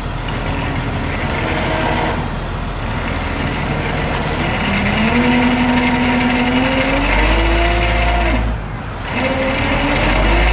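Digger derrick truck (2001 GMC C7500) running its hydraulics to work the auger, the engine speeding up under hydraulic load. The pitch climbs from about four and a half seconds in, dips briefly near the end, then rises again.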